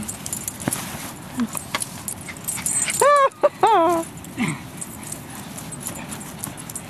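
Small Maltese dog giving two short, high-pitched yips about three seconds in, the second sliding down in pitch, among scattered light clicks and rustling.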